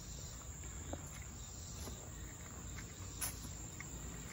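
Quiet outdoor background of faint, steady insect chirring, with a couple of soft ticks.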